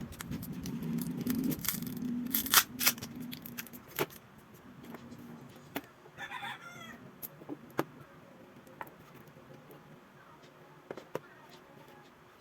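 Sharp clicks and taps of small parts and tools being handled during phone disassembly, loudest about two and a half seconds in, with a short animal call in the background a little past the middle.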